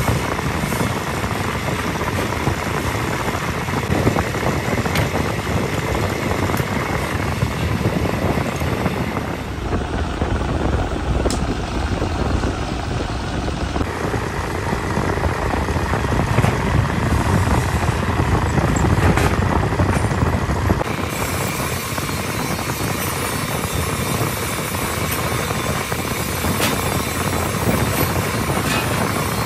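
Drilling machine running with its bit cutting into a cast-iron engine block: a steady, rough grinding noise, changing abruptly a few times.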